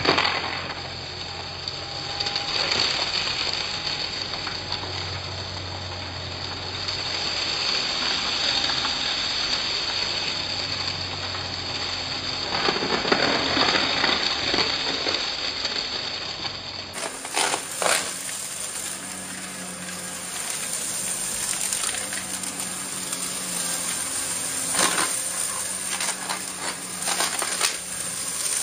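Shark upright vacuum cleaner running on carpet, with a steady motor whine and hum, sucking up small bits of debris that crackle and rattle up through it. The sound changes abruptly about 17 seconds in.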